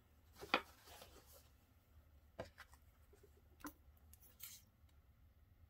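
Faint handling sounds of fabric-flower making: a few light clicks and taps, with a brief rustle about four and a half seconds in, as hands handle a paper towel, a glue bottle and a fabric petal.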